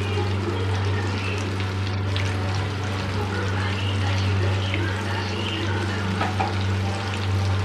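Coated prawns deep-frying in hot oil in an iron kadai: a steady bubbling sizzle over a steady low hum.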